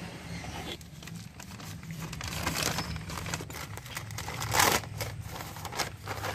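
Plastic packaging around a new scooter air filter being handled and opened by hand: a run of irregular crinkles and rustles, loudest about four and a half seconds in, over a low steady hum.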